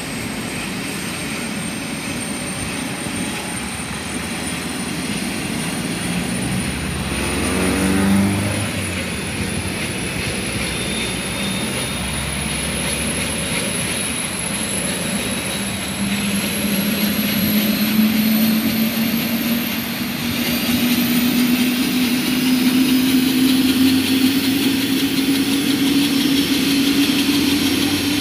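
Police turbine helicopter's engine and main rotor running on the ground and spooling up for takeoff: a high turbine whine and a lower rotor note both climb slowly in pitch while the sound grows louder. A brief louder swell with falling pitch comes about eight seconds in.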